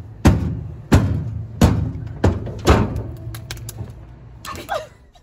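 A series of five heavy thuds, roughly two-thirds of a second apart, each ringing out briefly, followed by a few lighter knocks near the end.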